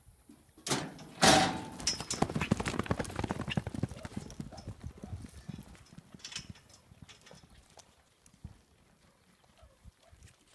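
Two sharp bangs, the louder about a second in, as the roping chute is opened, then horses galloping away across the dirt arena. The quick run of hoofbeats fades over the next several seconds.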